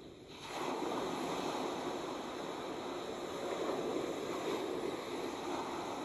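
Ocean surf washing onto a sandy beach: a steady rush of breaking waves that swells up sharply about half a second in.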